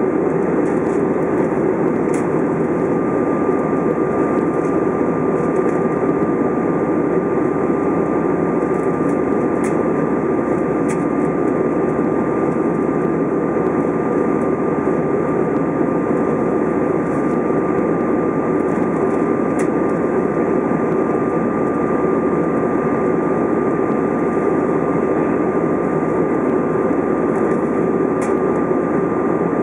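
Steady cabin noise of an Airbus A320 in flight, heard from inside at a window seat: the even roar of the engines and the airflow over the fuselage, with a thin steady high whine running through it.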